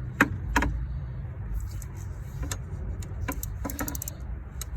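Metal tool clicks and clinks while a water pump bolt is worked loose with a triple-square bit: two sharp clicks close together near the start, then scattered clicks with a quick run of them near the end.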